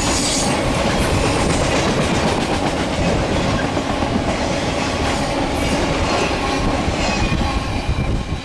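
Flatcars of a CSX maintenance-of-way train rolling past. Steel wheels clatter over the rail joints with a steady, loud rumble and occasional sharp clicks.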